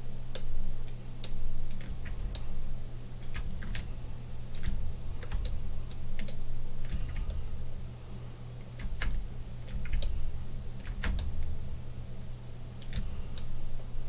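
Irregular light clicks and taps from working a computer's input devices, about one or two a second, over a steady low hum.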